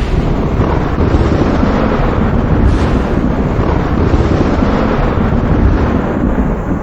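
Thunder: a long low rumble, with a sharp crack about three seconds in that rolls on into more rumbling.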